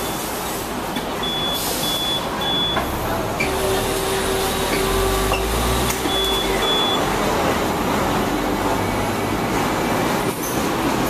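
Hong Kong double-decker tram running along the street: a steady rumble of the car and surrounding traffic, with a low hum that swells in the middle. Short high electronic beeps sound three times in a row about a second in and twice more a little past halfway.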